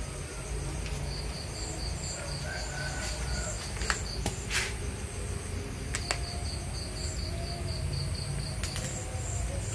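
Crickets chirping in a steady pulsed rhythm, over a low steady hum, with a few short sharp clicks or scuffs, the loudest about four and a half seconds in.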